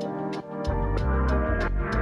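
Background music with a steady beat: a bass line under sustained synth-like chords, with a cymbal tick about three times a second.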